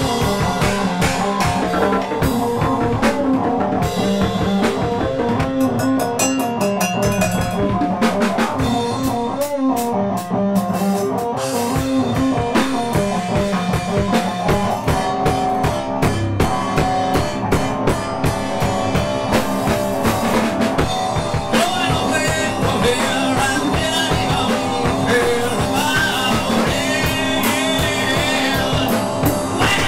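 Rock music: a full band with a drum kit and guitars playing steadily, with a short break about ten seconds in.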